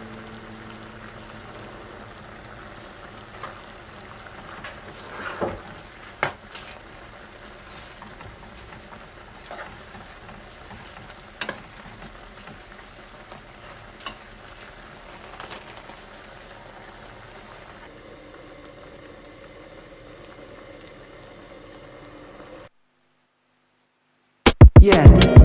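A pot of stew simmering on the stove, a steady bubbling hiss, with a few sharp knocks as a spoon stirs against the pot. Near the end it cuts to a moment of silence and then loud music.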